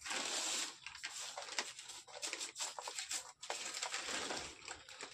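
Thin plastic sheet rustling and crinkling as hands spread and smooth it flat, with many small crackles; the sound starts suddenly.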